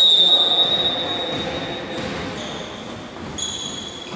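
A long, high referee's whistle echoing in a sports hall, fading over about a second and a half, which signals the serve in a volleyball match. Near the end come short, high squeaks of players' shoes on the court floor.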